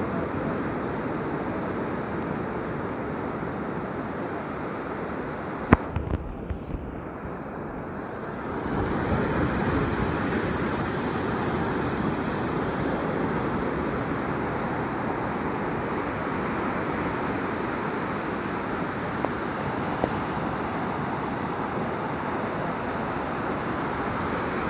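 Sea surf washing on the shore in a steady rush. It eases off about six seconds in and swells back a couple of seconds later. A single sharp knock comes about six seconds in, followed by a few smaller ones.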